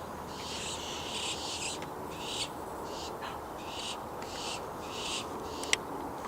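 Barn owls giving harsh, hissing screech calls, each under half a second long, repeated about once every half second to second. A single sharp click comes near the end.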